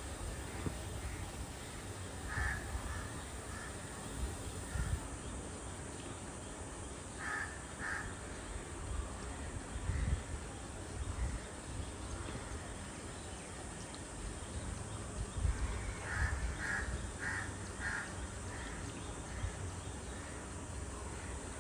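Crows cawing outside: a caw or two every few seconds, then a quick run of four caws about sixteen seconds in, over a low steady rumble.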